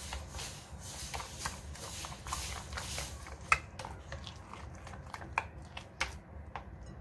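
A spoon stirring a thick yogurt and gram-flour spice paste in a glass bowl: soft squelching with scattered light clicks of the spoon against the glass, one sharper click about halfway through, over a steady low hum.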